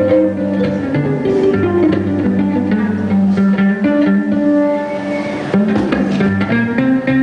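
Live band music: an instrumental passage of plucked-string notes over held low bass notes, with no singing.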